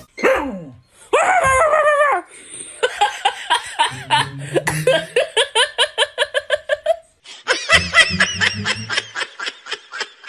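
A person laughing hard in quick repeated bursts, in two long runs of laughter.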